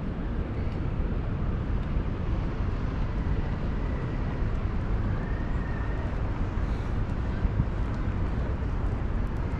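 Steady low rumble and hiss of outdoor background noise, with a faint thin tone near the middle.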